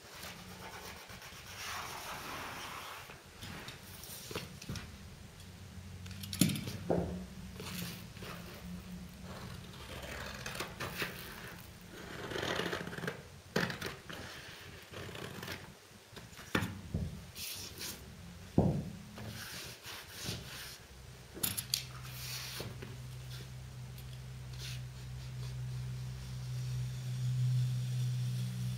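Stiff lining paper handled against a wall: the paper rustling and crinkling, scissors snipping through it, and the paper rubbed into the edge of the skirting, with scattered sharp clicks. A low steady hum comes in about two-thirds of the way through.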